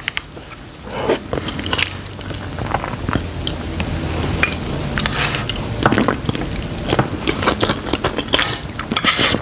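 Close-miked chewing of instant black bean noodles (Chapagetti): irregular wet mouth smacks and clicks that grow louder after about a second.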